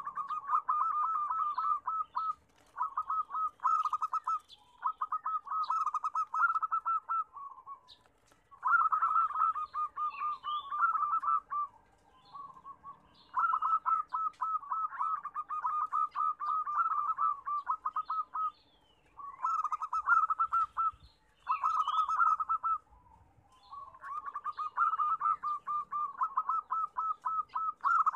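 Zebra dove (perkutut) song: phrase after phrase of rapid, trilled cooing notes, each run lasting one to a few seconds, with brief pauses between.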